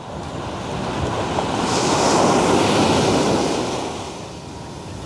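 Heavy ocean surf on a rough sea: a big wave breaking and washing in, swelling to a peak about halfway through and then fading. Wind buffets the microphone throughout.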